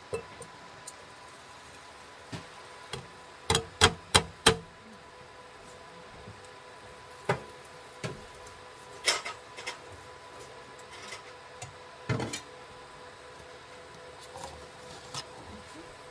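Kitchen cookware clatter: sharp knocks of metal pans and utensils, four in quick succession about three and a half seconds in, then single knocks spread through the rest, over a faint steady tone.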